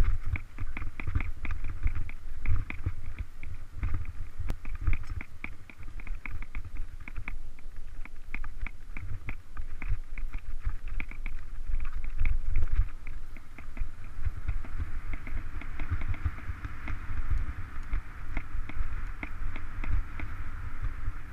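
Mountain bike ridden over a bumpy grass singletrack: a steady low rumble and uneven thumps from the trail, with rapid rattling clicks from the bike. From about two-thirds through, a steadier higher buzz joins in.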